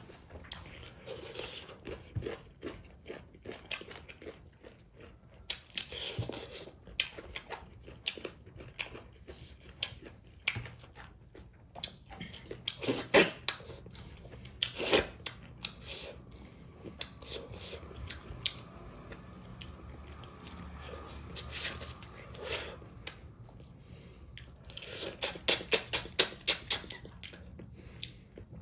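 Close-miked mukbang eating: a person chewing and biting food with irregular wet crunches. Near the end comes a quick run of crunches, several a second.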